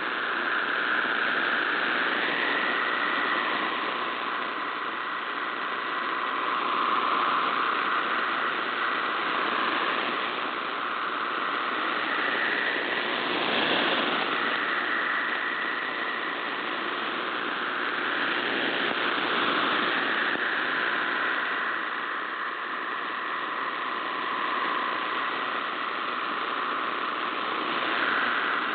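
MT63-1000 (long interleave) digital text signal received on shortwave: a dense band of data tones in steady hiss and static. The signal swells and fades slowly, as on a marginal shortwave path.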